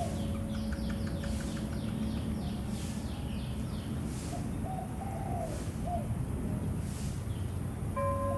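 Birds calling over a steady background hiss: quick, high, falling chirps repeat several times a second for the first few seconds, with lower warbled calls now and then through the middle. A sustained bell tone comes in just before the end.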